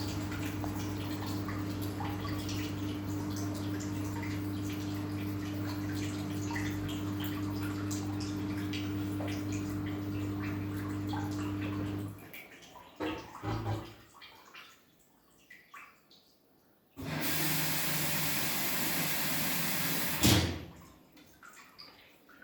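Samsung washing machine running with a steady hum and water noise, which stops about halfway. A few knocks follow, then a loud hiss for about three seconds that ends in a sharp click.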